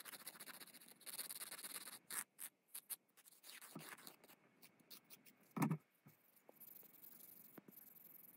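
Nail file scraping across a fingernail in quick strokes, prepping the natural nail, then a single soft knock about five and a half seconds in. After it comes a fainter, even rubbing as a buffer block goes over the nail to take off its shine.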